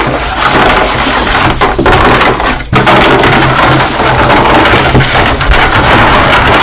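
Small plastic toy animal figures being bashed together and scraped across a wooden tabletop: a loud, rapid, continuous clatter of knocks and scrapes, with a brief lull a little before halfway.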